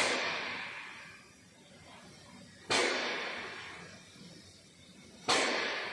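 Three sharp bursts of sound about two and a half seconds apart, each starting suddenly and fading away over a second or two.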